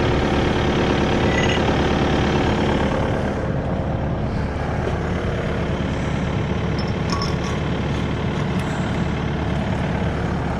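Diesel engine of the Kubota KX080-3 excavator idling steadily, dropping slightly in level about three and a half seconds in.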